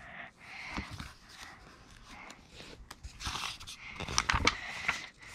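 A child's hands opening a hardcover Little Golden Book and turning its pages: soft paper and cover rustling, with a few sharp clicks about four seconds in.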